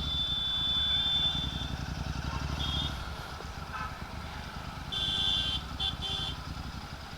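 Royal Enfield Continental GT 650's twin-cylinder engine running under way through a Red Rooster aftermarket exhaust, its low exhaust note easing off about three seconds in. A high beeping tone sounds briefly about five seconds in.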